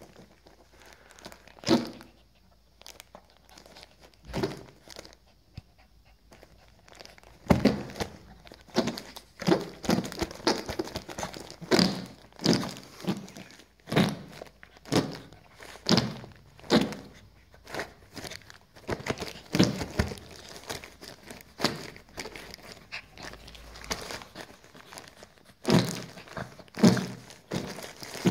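Squeezable fart toy pressed by hand over and over, giving short fart noises: a couple of single ones at first, then about one a second through the middle, a few seconds' pause, and more near the end.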